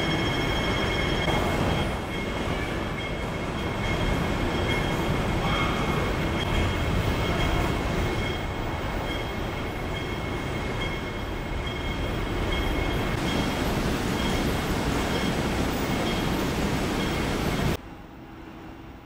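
Running noise inside a moving train carriage: a steady rumble with two constant high-pitched whines, cutting off abruptly near the end.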